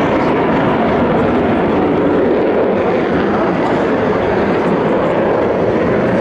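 Two Dassault Mirage 2000 jets flying in close formation, their engines making a loud, steady jet rush.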